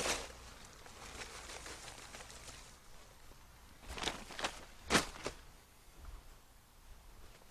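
A few scattered crunches and thuds in loose dirt, clustered between four and five and a half seconds in, the loudest about five seconds in.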